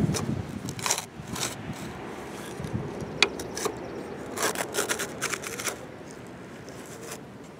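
Plastic bucket of a Playmobil toy excavator scraping and digging through sand, pushed by hand, in a series of short rasping scrapes with a sharp click a few seconds in. The scrapes are busiest past the middle and die down near the end.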